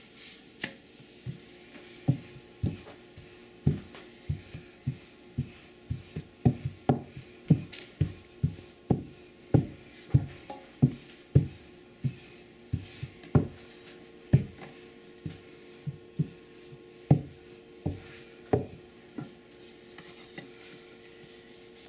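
Wooden rolling pin rolled back and forth over potato lefse dough on a cloth-covered board: a short knock at each stroke, about one and a half a second, with cloth and dough rubbing between, stopping a couple of seconds before the end.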